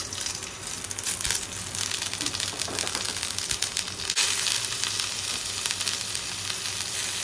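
Tadka spices (cumin, mustard and fenugreek seeds, asafoetida, grated ginger, green chilli) sizzling in hot oil, with quick crackles and pops. The hiss grows fuller and steadier about four seconds in.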